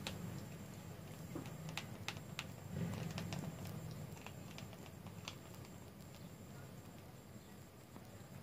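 A ferret gnawing on the plastic lid and carry loop of a BlenderBottle shaker: irregular light clicks of teeth on hard plastic, most of them in the first half and fewer after that, over a low rustle.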